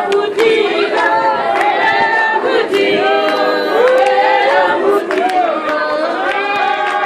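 A group of women singing together unaccompanied, several voices in long held notes.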